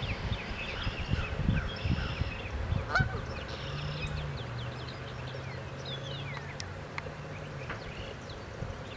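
A flock of birds calling: many short, quickly falling calls, overlapping throughout. A low steady hum comes in about three and a half seconds in and stops about a second before the end.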